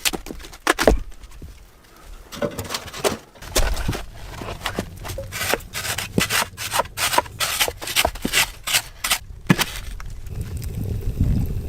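Wood being worked by hand: rough rubbing, scraping strokes in quick succession, thickest through the middle.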